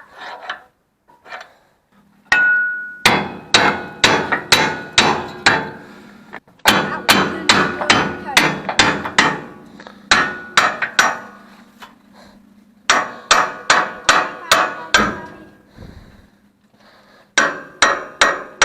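Hammer striking the steel pin of a truck's snowplow mount to drive it out: sharp metal-on-metal blows with a brief ring, about two a second, in runs of several strikes separated by short pauses.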